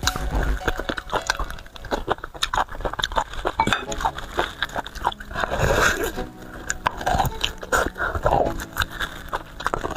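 Close-miked wet chewing and biting of soft bone marrow and meat off a large marrow bone, with many quick mouth clicks and smacks.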